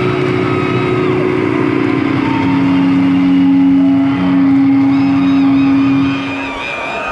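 Live rock band's distorted electric guitars ringing out a held chord that shifts to a lower sustained note about two and a half seconds in and dies away near the end, with crowd voices above it.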